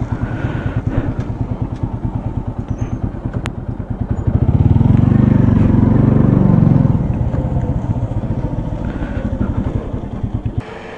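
Motorcycle engine running as the bike rides along, a fast pulsing low note that grows louder for a few seconds in the middle. Just before the end it drops abruptly to a quieter level as the bike comes to a stop.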